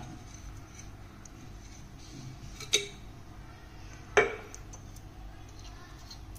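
Metal spoons clinking twice against a ceramic plate, about a second and a half apart, the second louder, over a low steady hum.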